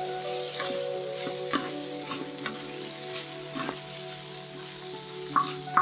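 Pork belly, bamboo shoots and onions in a red chili sauce sizzling in a wide cast-iron pan while two wooden spatulas stir and toss them, with short scraping strokes against the iron at irregular intervals, several close together near the end.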